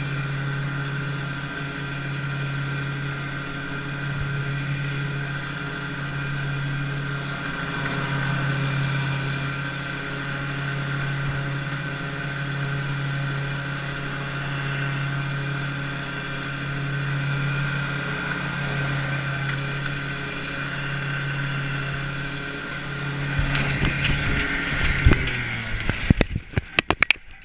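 Engine running steadily at a constant speed, then stopping near the end, followed by irregular clattering and bumping.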